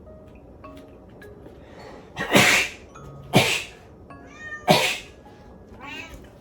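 Frightened cat hissing in defence: three short, loud hisses about a second apart, with a brief wavering cry before the last one.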